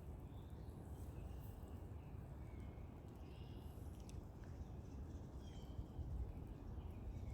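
Quiet outdoor ambience: faint, short bird chirps scattered over a low, steady rumble, with a single brief click about four seconds in.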